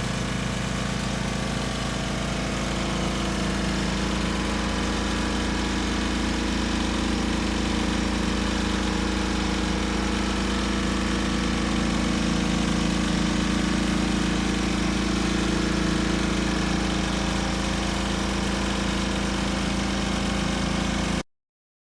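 Spin-dryer tub of a compact twin-tub washing machine spinning a load of wet clothes: a steady motor hum that builds a little over the first few seconds, then holds even. It cuts off suddenly near the end.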